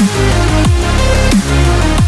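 Electronic dance music with a loud, heavy bass line whose notes swoop down in pitch about every two-thirds of a second, over sustained synth chords.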